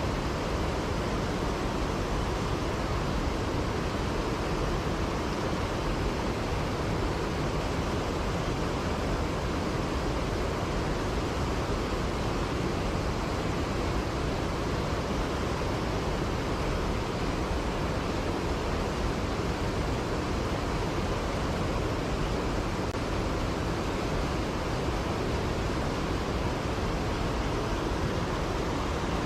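Mountain stream water rushing steadily, an even noise with no breaks.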